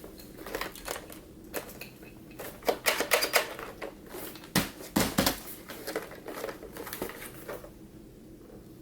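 Irregular plastic clicks, taps and knocks from handling a car's center armrest lid just after its new cover has been pressed in, with a dense cluster of sharp taps about three seconds in and a couple of duller thumps soon after.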